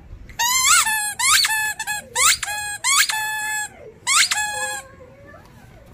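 Small rubber toy ball squeaking again and again as a German shepherd puppy chews it: about five loud, high squeaks, each swooping up and then held briefly.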